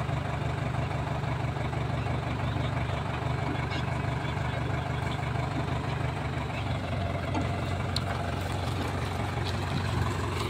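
Tractor diesel engine idling steadily, its low hum dropping slightly in pitch about six and a half seconds in.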